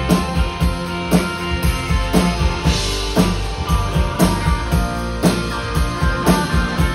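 Live rock band playing, with a drum kit keeping a steady beat about two hits a second under electric guitars.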